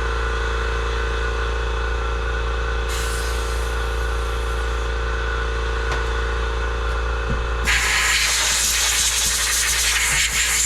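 A steady machine hum with several held tones. About eight seconds in, a loud hiss starts as the Briggs & Stratton carburetor is blown out under pressure.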